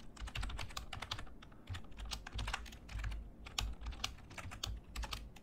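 Typing on a computer keyboard: an irregular run of quick key clicks, several a second, with short pauses between bursts.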